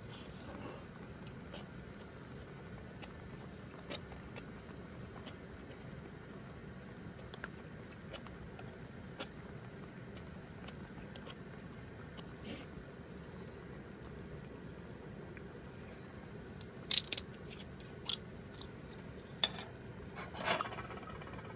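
Someone eating, chewing and crunching food, over a steady low background hiss, with a few louder sharp clicks and knocks in the last few seconds.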